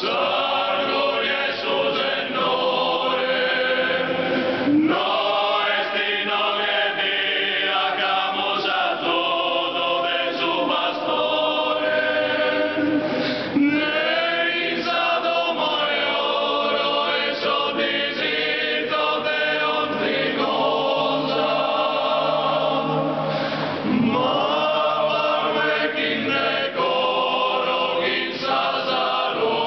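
Small Sardinian male choir singing a cappella in traditional style, several voices held together in close harmony. The phrases are long, with brief breaks between them about five, thirteen and twenty-four seconds in.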